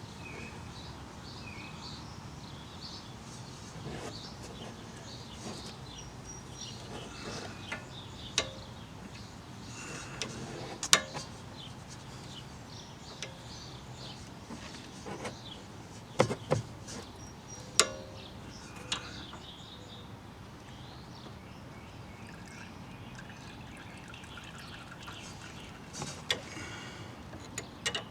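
Scattered sharp clicks and knocks of hand tools and metal parts being handled, a dozen or so spread irregularly over a steady background hiss, the loudest about eleven seconds in and a cluster around sixteen to eighteen seconds.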